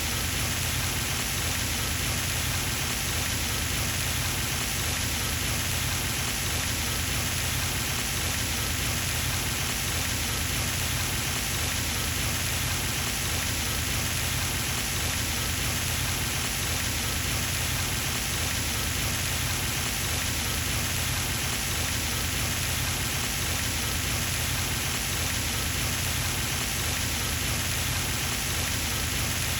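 Pond fountain running: a steady, even splashing of falling water onto the pond surface, like rain.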